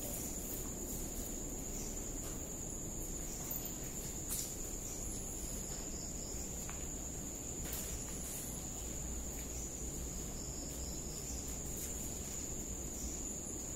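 Steady, high-pitched chorus of night insects, with a low rumble beneath and a few faint clicks, one about four seconds in and one near eight seconds.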